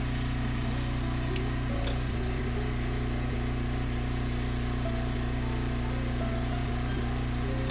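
An engine running steadily at an even, unchanging pitch, with a couple of faint clicks in the first two seconds.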